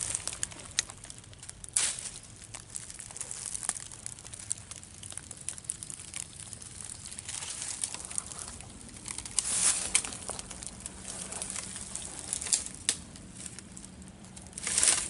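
Footsteps crunching and rustling through dry leaf litter and twigs, irregular, with many sharp crackles and louder spells about two-thirds through and at the end.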